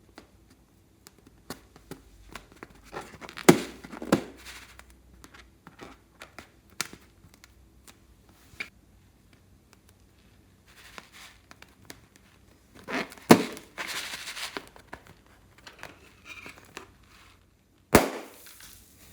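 Slime and rubber balloons being handled close up: scattered sticky crackling and squishing, broken by three sharp pops, a few seconds in, about two-thirds of the way through, and near the end.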